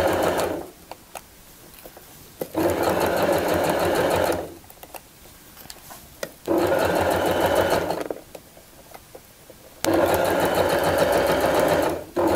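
Domestic electric sewing machine stitching a zipper tape onto fabric with a zipper foot. It runs in stop-start spells: a run ends about half a second in, then three runs of about two seconds each follow with short pauses between, and it starts again right at the end. A few faint clicks fall in the pauses.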